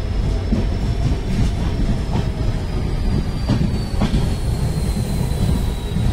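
Goods train's open wagons rolling past close by: a steady low rumble of wheels on rail with irregular clacks over the rail joints. A thin high wheel squeal runs through it, slowly falling in pitch.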